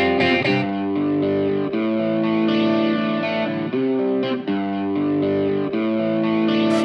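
Background music led by guitar with effects, playing held notes that change every second or so; a quick ticking beat comes in near the end.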